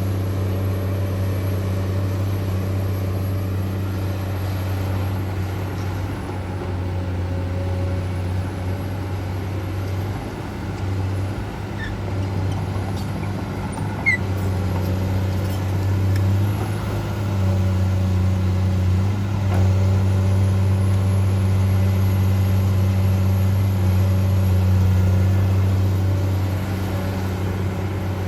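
Komatsu PC200-8 excavator's six-cylinder diesel engine running steadily under working load, easing off briefly twice and then running louder in the second half. A single sharp click sounds about halfway through.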